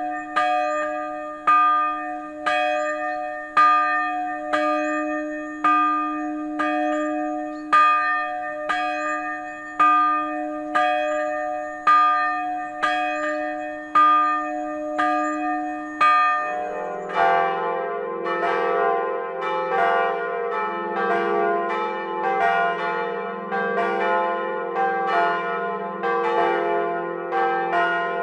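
A single swinging church bell striking about once a second, strong and weaker strokes alternating. About 17 seconds in it changes to a fuller peal of several lower-pitched church bells ringing together, their strokes quicker and overlapping.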